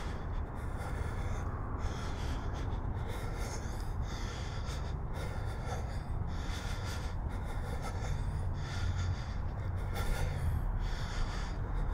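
A person's breathing right at a camera's built-in microphone, in and out about once a second, over a steady low rumble.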